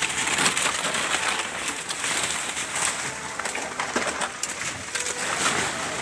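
Fresh banana leaves rustling and crackling as armfuls of them are handled and pushed into a goat feeder, a continuous papery crackle dotted with small snaps.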